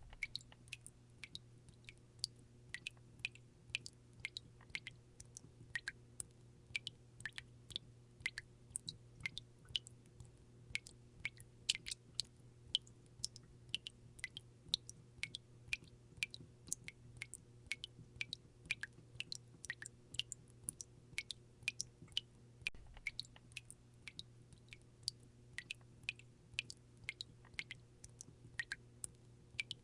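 Faucet dripping: water drops falling in quick, irregular succession, a few per second, each a short, sharp plink. A faint steady hum runs underneath.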